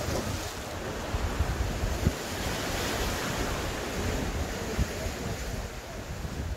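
Strong wind buffeting the microphone, with sea waves washing against rocks; the rush swells about halfway through.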